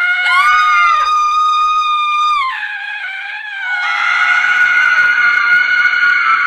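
A woman screaming in long, high-pitched held screams. The first falls in pitch and trails off about two and a half seconds in. A rougher, harsher scream starts near four seconds and keeps going.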